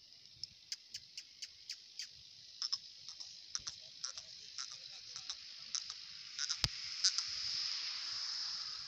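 Crickets chirping steadily in a high, even trill, with a scatter of short sharp clicks and ticks over it; the sharpest click comes about six and a half seconds in.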